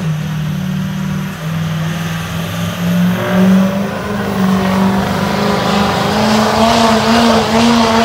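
Diesel pickup truck engine running at full throttle under heavy load while dragging a weight-transfer sled, a steady drone that climbs a little in pitch about three seconds in and holds there.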